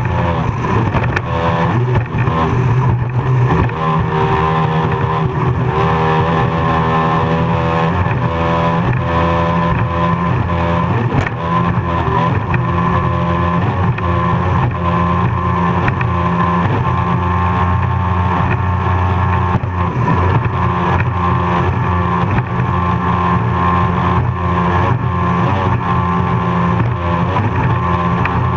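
Offshore racing powerboat's engine running hard at racing speed, heard from on board: a loud, steady engine note whose pitch wavers slightly as the boat runs over the chop.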